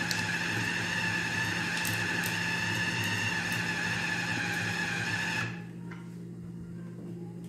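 Electric food chopper running steadily with a whine, grinding beef meatball paste, then cutting off suddenly about five and a half seconds in as the motor unit is released.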